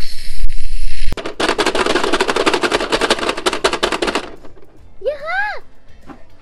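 Aerosol whipped-cream can hissing for about a second as cream is sprayed. Then the Pie Face game's handle is cranked: a fast, even run of plastic ratchet clicks lasting about three seconds. Near the end there is a short rising-and-falling squeal from a child.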